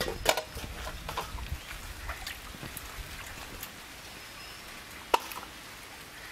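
Wet raw chicken pieces being lifted by hand and dropped into a stainless steel colander: scattered soft wet slaps and light clicks, with one sharper knock on the metal about five seconds in.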